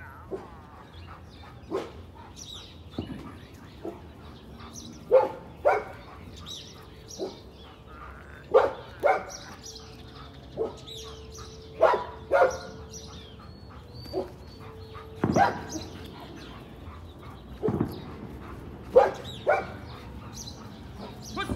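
A dog barking in short, sharp barks, often two in quick succession, repeated every couple of seconds.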